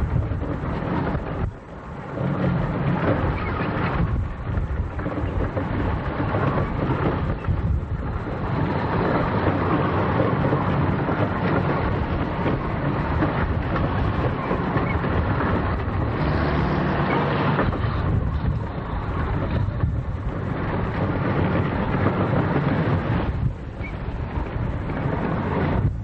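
Gusty wind buffeting the microphone: a loud, uneven rumble that dips briefly several times as the gusts ease.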